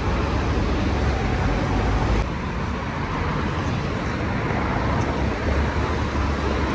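Busy city road traffic: cars passing, with steady engine and tyre noise and a deep rumble. The sound shifts abruptly about two seconds in.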